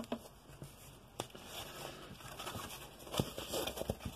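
Printed wrapping around a rolled diamond-painting canvas rustling as hands unwrap it, with a sharp click about a second in and busier rustling near the end.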